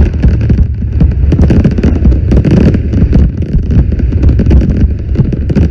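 Fireworks going off in a dense, continuous barrage of bangs and crackling over a heavy low rumble.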